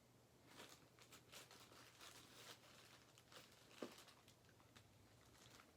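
Faint crinkling and tearing of packaging as a parcel is opened, with scattered soft clicks and rustles over a low steady hum.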